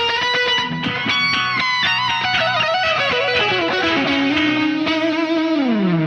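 Electric guitar solo played as single notes. A held note gives way about a second in to a flurry of fast notes, then a falling run down to a second held note, and a slide down in pitch near the end.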